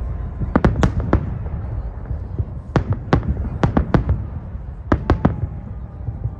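Fireworks salute shells bursting: about a dozen sharp bangs in three clusters, over a steady low rumble.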